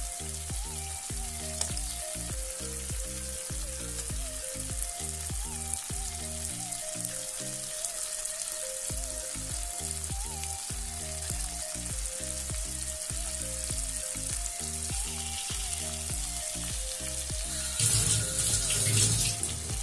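Masala paste sizzling in oil in a frying pan, fried to the point where the oil separates, as raw chicken pieces go in, under background music with a steady beat. The frying gets louder briefly near the end.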